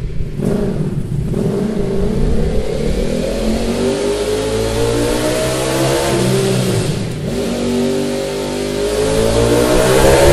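Ducati Panigale V4's 90-degree V4 engine revving through a MIVV Delta Race aftermarket exhaust. The engine note climbs slowly for about six seconds, drops back briefly around seven seconds in, then climbs again, louder, in the last few seconds.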